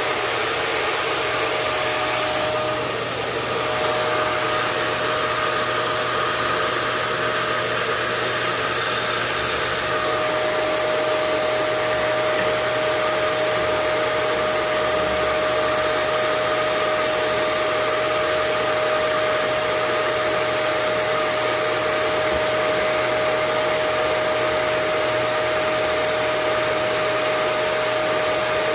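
Vacuum cleaner running loudly with a steady whine. It is fitted with a home-made angled hose and is sucking built-up lint out of the clogged air vent under a gas water heater. The whine's tone settles about three seconds in.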